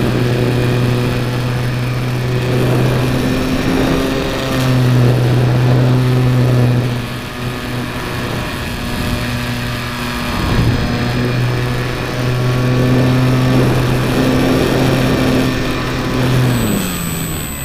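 Motor and propeller of a small Lazy Bee RC model plane, heard from a camera on board, running with a steady low drone that breaks off briefly a few times. The drone drops in pitch near the end. Wind rushing past the airframe makes a steady noise throughout.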